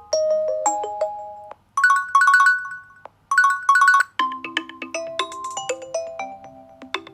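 Nokia 6.1 stock ringtones playing, bell-like and electronic. First comes a short chiming melody, then a fast two-note ringing figure played twice with a gap between. About four seconds in, a lower, different melody begins.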